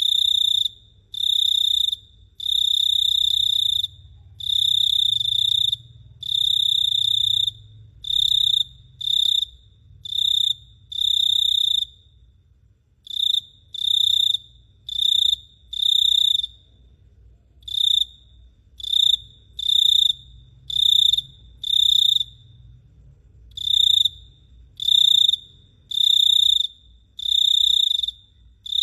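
A cricket chirping: a loud, high-pitched trill broken into bursts from a fraction of a second to about a second and a half long, with short gaps between them and a longer pause about twelve seconds in.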